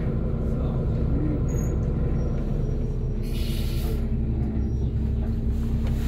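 Inside a SOR NB 12 city bus: the engine hums steadily at low speed as the bus draws up and stops, and a little over three seconds in there is a short hiss of air from the air brakes.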